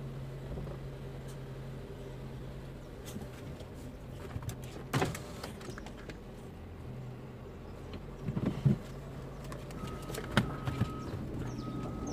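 Car engine running, heard from inside the cabin as a steady low hum, with a few scattered knocks and clicks, the loudest a little before nine seconds in. A short high tone sounds twice near the end.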